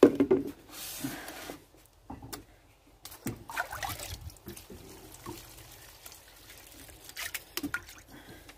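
Water poured and sloshed from a plastic bowl over bark potting mix in a pot standing in a tray of water, splashing and trickling in several separate bursts. This is the soaking of the orchid's bark mix in diluted fish fertilizer.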